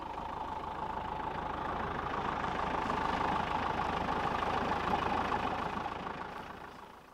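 Safari 4x4 driving along a dirt track: steady engine and tyre noise that fades out near the end.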